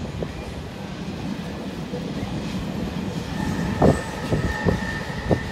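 Passenger train running along the line with a steady low rumble and a few sharp clacks of wheels over the rails; a high, steady squeal joins about three seconds in.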